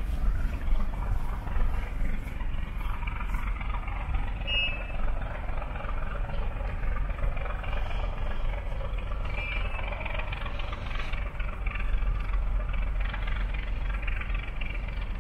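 Steady low outdoor rumble, with a brief high chirp about five seconds in and again near ten seconds.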